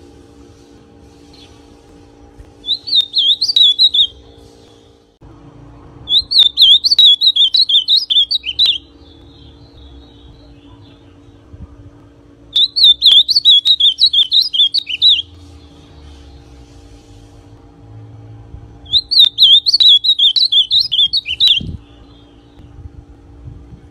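Ultramarine grosbeak (azulão) in brown 'pardo' plumage singing four quick, warbled, high-pitched phrases, each two to three seconds long, a few seconds apart. A steady low hum runs underneath.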